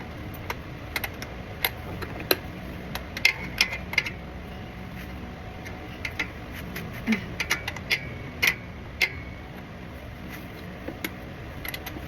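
Irregular metallic clinks and clanks of a wrench working on a car's stuck oil drain plug, a few with a short ring.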